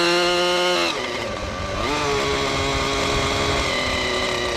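RC helicopter's engine and rotor whine, changing pitch with throttle: steady at first, dropping about a second in, climbing back about two seconds in and holding, then sagging near the end.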